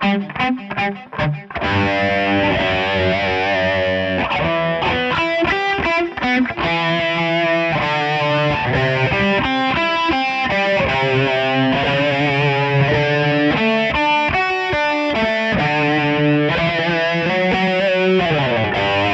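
Electric guitar picking slow arpeggios across all six strings, each chord of a G major, E minor, C major, D major progression broken into single notes with passing tones between them. The notes ring into one another, and near the end the pitch glides downward.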